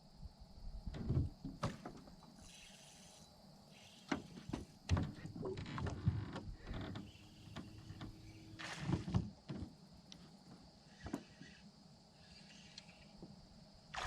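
Irregular knocks, clicks and rustling of things being handled, at uneven intervals.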